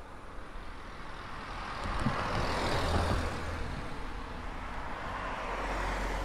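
A road vehicle passing close by: its engine rumble and tyre noise swell to a peak about halfway through, then slowly fade.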